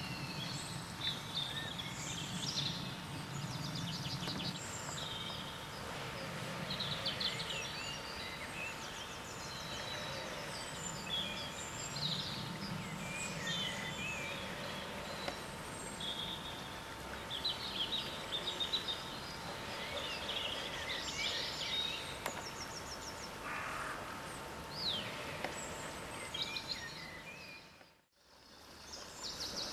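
Several wild birds singing and calling in a garden: many short chirps and quick trills, one after another, over a low steady outdoor rumble. The sound drops out briefly near the end.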